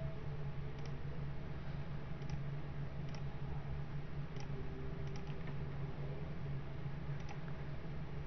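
A few faint, scattered computer mouse clicks as edges are selected, over a steady low hum.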